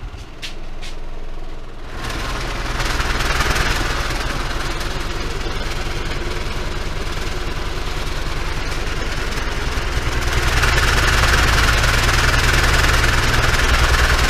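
An 18-inch Dayton Audio subwoofer driver in free air, driven with a roughly 20 Hz tone by a Kenwood KA-7100 amplifier turned up toward full power. It makes a rapid pulsing rumble while things on the bench shake and rattle. It gets louder about two seconds in and again about ten seconds in. Two small clicks of the oscilloscope's scale switch come right at the start.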